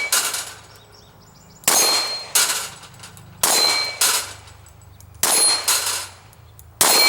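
Sharp metallic clangs with a bright ring, coming in pairs about half a second apart, a pair roughly every 1.7 seconds.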